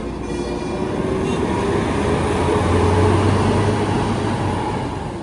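A large tour bus driving past close by, its engine and tyre noise swelling to a peak about three seconds in and then easing off.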